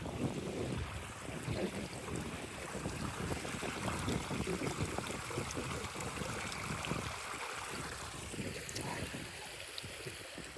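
Wind buffeting the microphone, a steady rushing with uneven low rumbling gusts.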